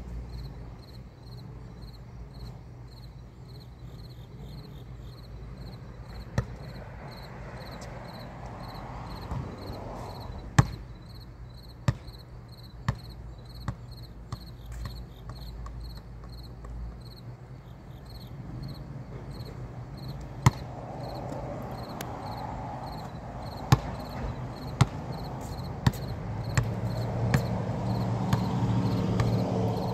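A basketball bouncing on a concrete court: single bounces spaced several seconds apart, then a run of bounces about a second apart near the end. A faint pulsing insect trill sits behind them.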